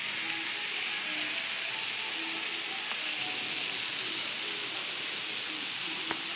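Salmon skewers and shrimp sizzling on a hot Himalayan salt block: a steady hiss.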